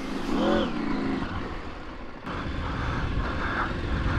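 Adventure motorcycle riding off-road, its engine revving up and easing off about half a second in, then running steadily under wind noise on the helmet microphone.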